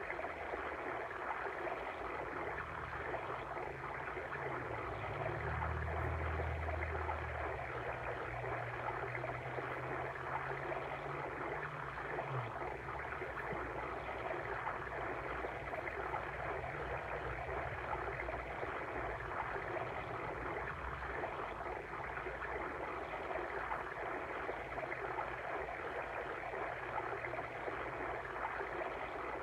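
Water stream flowing steadily, an even rushing ambience with no breaks.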